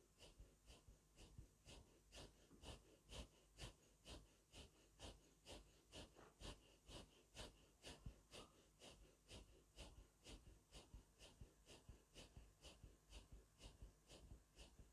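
Faint, rapid, evenly paced forceful breathing through the nose, about two to three breaths a second. This is the breath practice of zikr-e-khafi (silent Sufi remembrance), here directed at the second latifa, the ruh.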